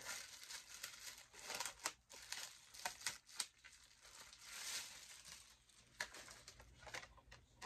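Clear plastic bag crinkling as it is pulled open and handled, with irregular crackles throughout.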